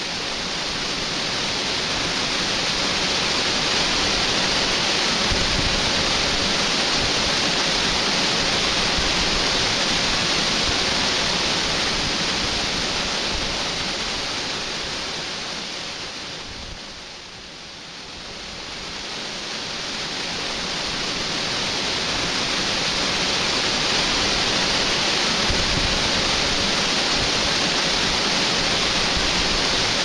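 Running water of a river flowing over rocks, a steady rushing hiss. It fades down about halfway through and swells back up.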